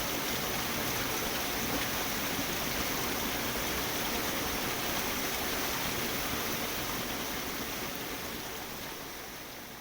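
Steady rush of a waterfall's falling water, gradually fading out toward the end.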